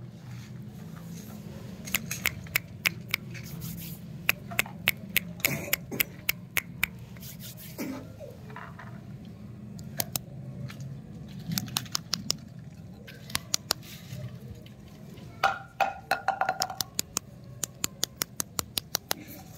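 Wrapped lollipops being handled: sharp crinkles and clicks from the plastic wrappers, some single and some in quick runs, over a steady low hum.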